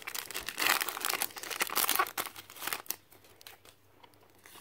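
Foil wrapper of a Pokémon TCG booster pack crinkling as it is torn open, the crackling stopping about three seconds in, with a few light clicks after.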